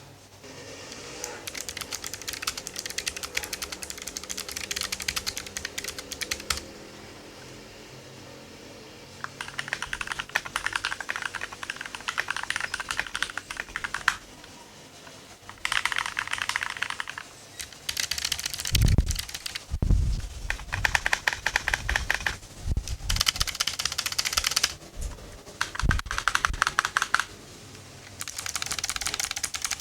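Typing on a Keychron mechanical keyboard: fast runs of key clicks in about eight bursts with short pauses between them. A few deeper thumps fall in the middle.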